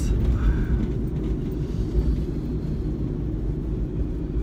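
Kei van driving, its engine and road noise heard from inside the cabin as a steady low rumble.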